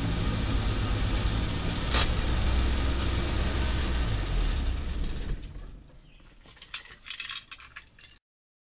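DKW Vemag Belcar's three-cylinder two-stroke engine idling, heard from inside the cabin, with one sharp click about two seconds in. About five seconds in the engine is switched off and dies away, leaving a few light clicks before the sound cuts off suddenly.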